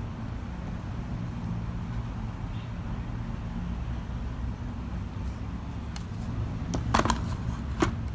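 Steady low rumble of background noise, with two sharp taps near the end from craft items being handled on the tabletop.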